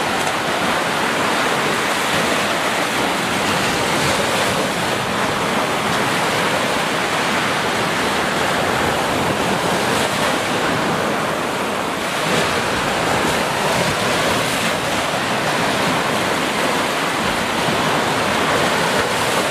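Sea surf: small waves breaking and washing up a sandy beach in a steady, continuous wash of noise.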